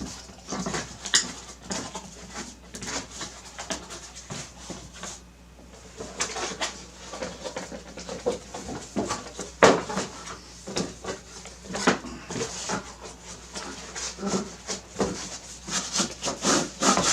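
A dog making short, irregular noises close to the microphone, mixed with scattered clicks and knocks.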